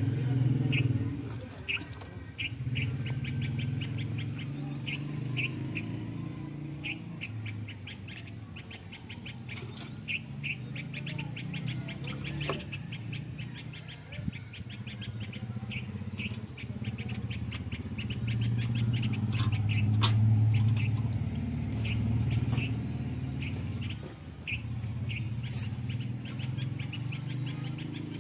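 Hand milking a cow: jets of milk squirt into a steel bucket in a quick, even rhythm of about three or four squirts a second. A steady low hum runs underneath.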